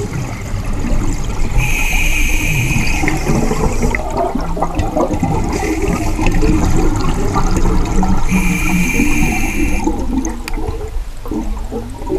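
Scuba divers breathing underwater on open-circuit regulators: exhaled air bubbling and gurgling out, with two hissing inhalations through the demand valve, one about two seconds in and another about eight seconds in, each lasting over a second.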